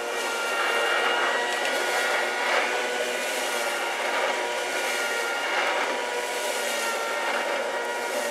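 Small corded electric rotary lawn mower running as it is pushed over grass: a steady motor whine over the hiss of the blade, swelling slightly every second or two.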